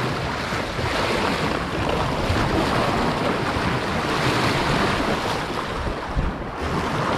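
Steady rush of wind buffeting the microphone, mixed with the wash of sea waves.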